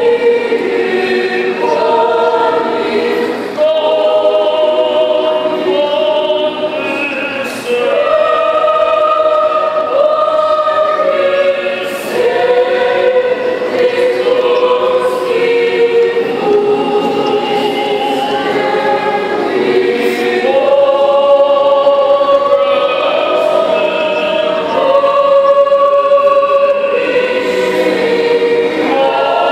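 Mixed choir of women's and men's voices singing in harmony, holding long chords in phrases a few seconds long with brief breaks between them.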